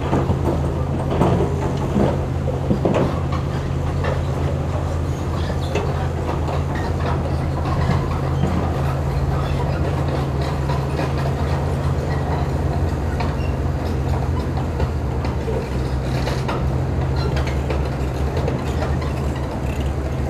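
Heavy diesel engines of an excavator and a dump truck running steadily, with rocks clattering and tumbling as the raised dump-truck bed tips its load, the clatter busiest in the first few seconds.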